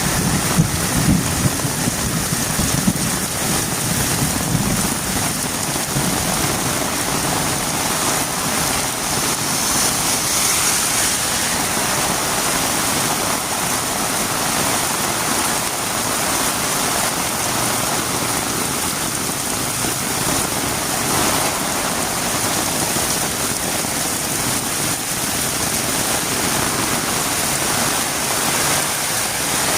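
Heavy rain falling steadily, a dense even hiss, with a few low thumps in the first few seconds.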